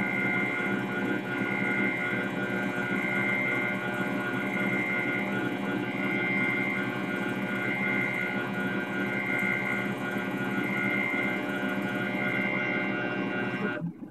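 Light Machines benchtop CNC lathe running a turning program: a steady machine hum with a high whine that swells about every second and a half. It cuts off suddenly near the end as the machine stops.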